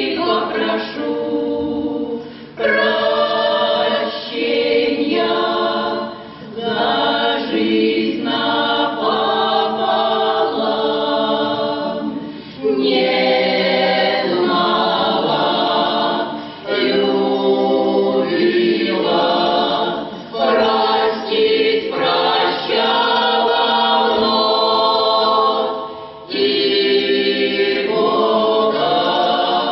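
Folk choir singing a song in phrases of a few seconds each, with short breaks between them.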